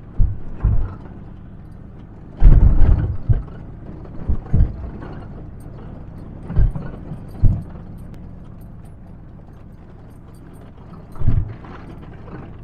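Ford Ranger pickup with a bed camper driving slowly over a rough lava-rock track: a steady low drone of engine and tyres, broken by irregular heavy thumps and knocks as the truck jolts over the rocks, loudest in a cluster about two and a half seconds in.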